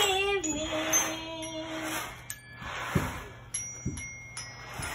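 A child's toy xylophone struck with a mallet, its bars giving a few short ringing notes, with dull thumps on a wooden box about three and four seconds in. Before that, a single pitched note is held for about two seconds.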